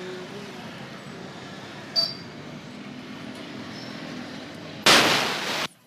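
A compressed-air line's chuck pressed onto a bicycle's rear-tyre valve, letting out a loud hiss of air for about a second near the end as the tyre is inflated. Steady traffic noise runs underneath, with a small click about two seconds in.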